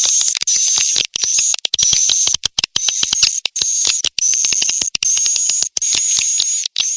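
Swiftlet call playback used to lure young swiftlets into a swiftlet house: rapid runs of high, clicking chirps topped by a thin whistle, in phrases of about half a second to a second with short gaps between them.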